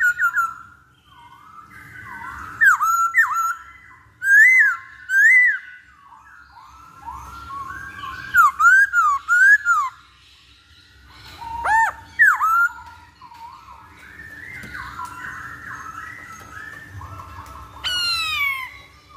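Hwamei (Chinese melodious laughingthrush) singing loud, clear whistled phrases that swoop up and down, given in short repeated clusters over softer continuous warbling. Near the end comes one long falling whistle.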